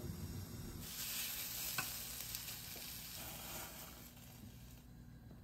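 Tomatoes sizzling in a frying pan on a gas burner, a steady hiss that fades out near the end, with a light click about two seconds in.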